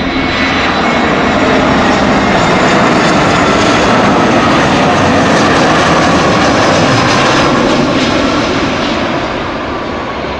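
Jet airliner's engines during landing approach and touchdown: a loud, steady rushing roar with a faint whine on top, easing off slightly near the end.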